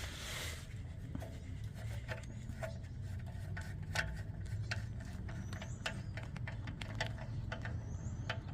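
A wrench working loose the oil drain plug on a 2004 Honda CR-V's oil pan: scattered light metallic clicks, irregularly spaced, after a brief rustle at the start.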